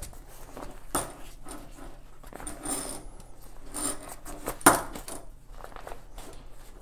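Handling noise as a trekking pole handle is pushed into the sleeve of a ripstop fabric chair seat: fabric rustling with a few light clacks, and one sharper knock a little over halfway.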